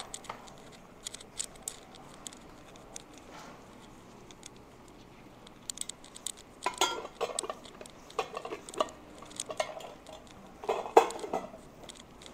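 Kitchen dishes and utensils being handled: scattered light clicks, then clusters of clattering knocks from about six and a half seconds in, the loudest near eleven seconds.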